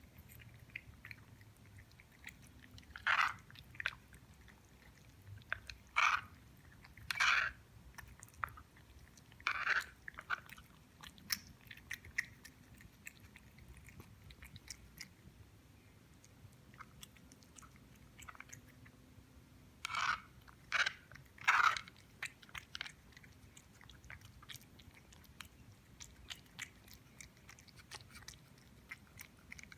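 Siamese cat eating, with small chewing clicks throughout and a few louder crunches of dry cat biscuits: several in the first ten seconds and a cluster of three about two-thirds through.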